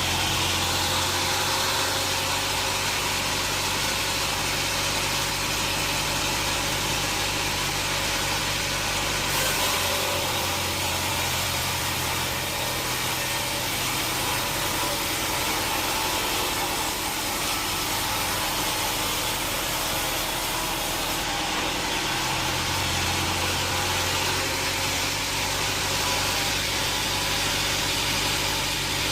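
Sawmill machinery running: a steady motor drone under a constant hiss, its low hum changing about ten seconds in and again a little past twenty seconds in.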